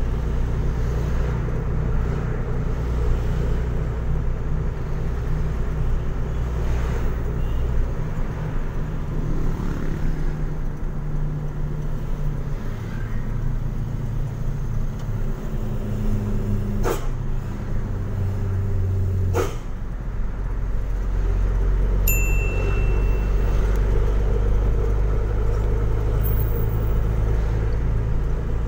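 Truck engine running while driving, heard from inside the cab, its pitch stepping up and down several times as it shifts gears. Two sharp clicks about two and a half seconds apart past the middle.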